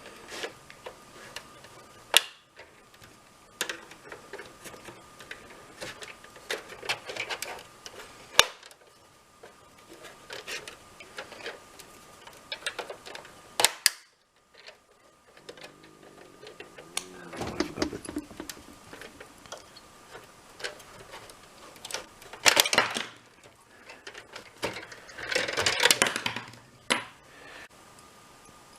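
Plastic clicks, snaps and scrapes as an Xbox 360's clip-together case is pried apart with screwdrivers. Lighter clicking and handling is broken by a few sharp, loud snaps.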